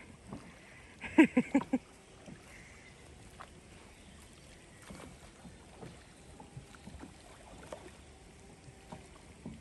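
A rowboat being rowed: faint oar splashes and small scattered knocks. About a second in comes a brief burst of four or five quick pitched sounds, the loudest thing heard.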